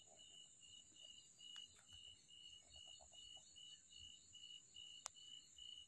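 Near silence, with faint insects chirping at night in an even, rapid pulse of several chirps a second.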